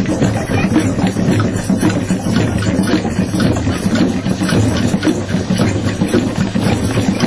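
Many djembes and other hand drums played together in a drum circle: a dense, continuous groove of quick hand strikes over a deep, full low end.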